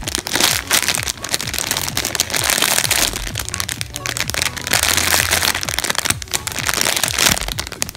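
Clear plastic packaging bag crinkling and crackling steadily as a bagged squishy toy is gripped and turned in the hands.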